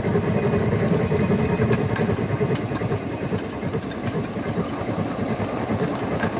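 Battery-powered ride-on miniature steam locomotive running along the track, making a steady, rapid rumbling clatter.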